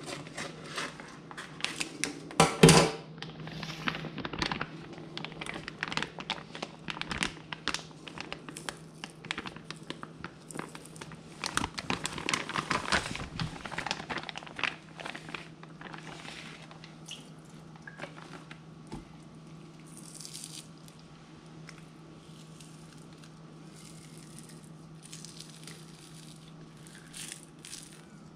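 Clear plastic bag of frozen milkfish crinkling and crackling as it is cut open with scissors and handled. The crackling is busy through the first half, with a loud crackle about two and a half seconds in. In the second half there are fewer, quieter rustles and squishes as the thawed fish are pulled out of the bag.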